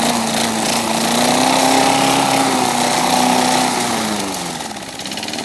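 Worn Tecumseh push-mower engine running revved up, its pitch rising a little and holding, then the revs falling off about four seconds in.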